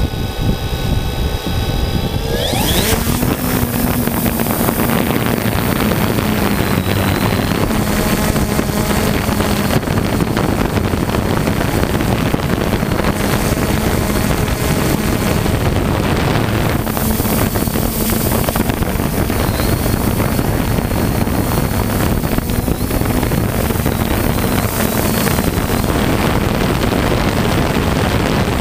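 3DR Solo quadcopter's motors whining at idle, then rising sharply in pitch about two seconds in as it lifts off, settling into a loud steady propeller buzz with rushing wind on the on-board microphone.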